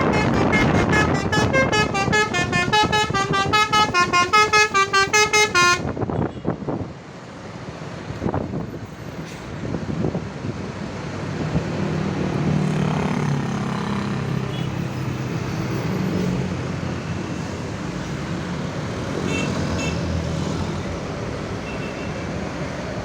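Basuri telolet bus horn playing a fast tune of short, pulsed notes that stops abruptly about six seconds in, followed by steady engine and traffic noise.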